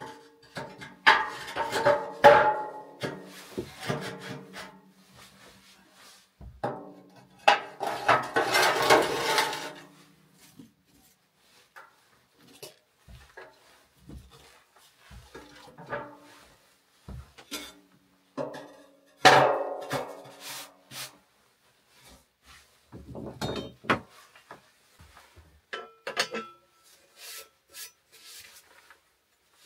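Clanking, scraping and rattling of a steel wood-burning stove's door and fittings being handled, in several bursts with pauses, some strokes leaving a short metallic ring; lighter knocks and rattles follow near the end.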